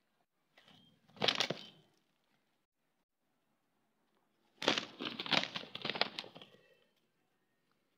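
Two Aseel roosters sparring: a short flurry of wing-flapping about a second in, then a longer, louder scuffle of flapping wings and quick strikes from about halfway through.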